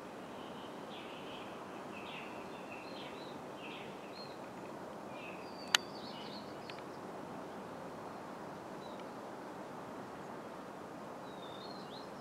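Small birds chirping in short, scattered calls over a steady background hiss, with a single sharp click about halfway through.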